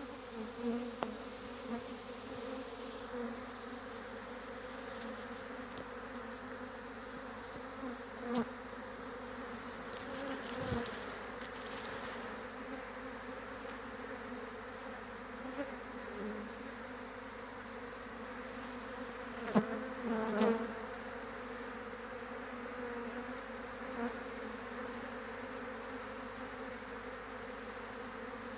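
A honeybee swarm buzzing close to the microphone: a steady, even drone of many bees' wings, with a few brief bumps. It is a freshly issued swarm clustered on the ground, the first swarm of the season.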